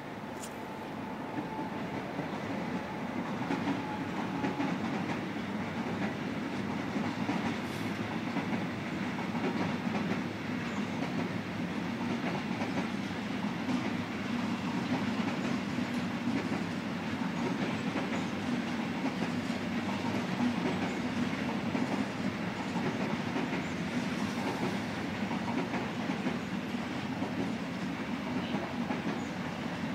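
ICE high-speed trainset passing on the station tracks, its wheels rumbling and clacking over the rail joints. The noise swells over the first few seconds as the train arrives, then holds steady as the cars roll by.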